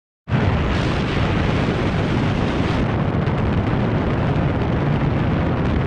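A loud, steady rushing noise with a heavy low rumble, cutting in abruptly a moment after dead silence and holding at an even level.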